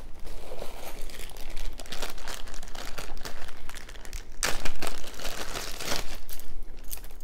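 Thin clear plastic zip-top bag crinkling and crackling as fingers handle it, loudest a little past the middle.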